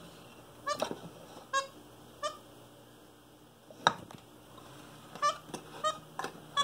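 Short, high squeaks come one at a time and then quicker near the end, with one sharp wooden clack just before four seconds, as a capuchin monkey handles a wooden mouse-in-a-box gag toy and its sliding lid.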